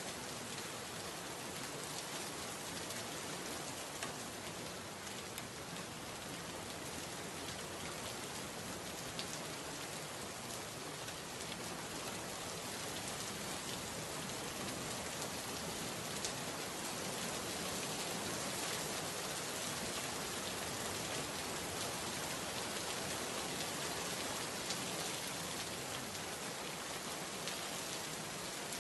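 Steady rain, an even hiss of falling rain with scattered faint drop ticks, used as the masking track of a subliminal recording.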